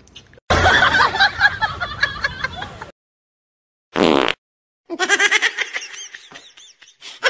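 Person laughing in a quick run of short bursts, starting about five seconds in. Before it there is a short high cry, and earlier a couple of seconds of noisy sound with voice in it.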